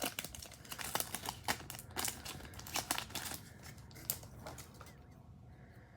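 Crinkling and tearing of a baseball card pack's wrapper being opened, with the cards clicking as they are handled; it stops about four and a half seconds in.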